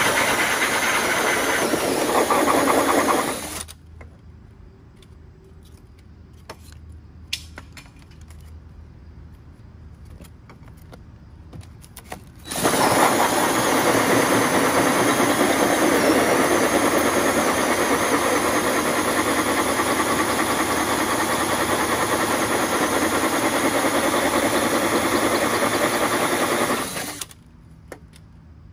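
Hole saw on a power drill cutting through the exterior wall to enlarge a pilot hole. It runs for about three and a half seconds, stops for about nine seconds with only a few small clicks, then cuts steadily for about fourteen seconds more and stops near the end.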